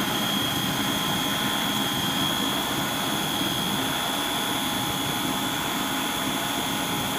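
Braun CombiMax 600 food processor motor running at a steady speed with a high whine, blending the wet ingredients of a cottage cheese dough before any flour is added.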